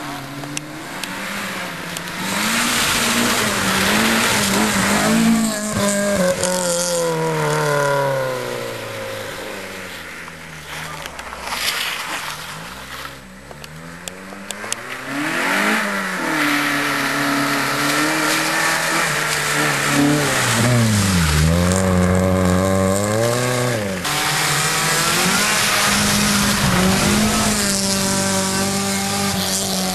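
Suzuki Swift GTi rally car's small four-cylinder engine revved hard and repeatedly, its pitch climbing and dropping with gear changes and lifts off the throttle. It fades somewhat a little before the middle, then grows loud as the car comes close and holds high revs near the end, with tyre hiss on the wet road underneath.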